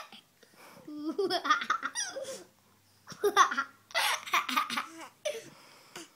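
Young children laughing, a baby's laugh among them, in two long fits: one about a second in and another about three seconds in, with a short burst near the end.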